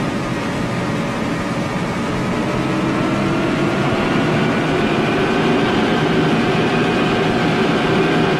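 Hydrofoil's gas turbine running up under the throttle for takeoff: a steady whine over a rumble, its tones slowly rising in pitch as it grows a little louder.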